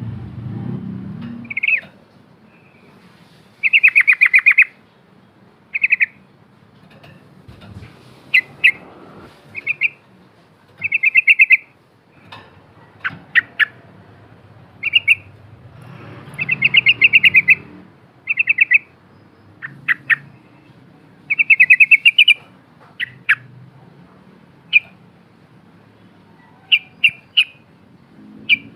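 Yellow-vented bulbul (trucukan) singing: a series of short, fast, rattling chattering phrases repeated every second or two, mixed with sharp single notes.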